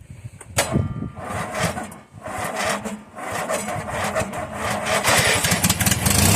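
Cold start of a riding mower's 17.5 hp Briggs & Stratton twin-cylinder engine on choke: running unevenly and ragged, growing louder, then settling into a steady run at the very end.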